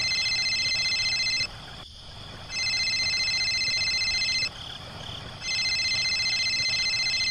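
Mobile phone ringing: three electronic rings of about two seconds each, about a second apart, each a high warbling tone.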